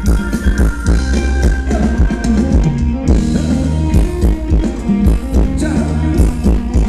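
Loud Thai ramwong dance music with a steady drum beat.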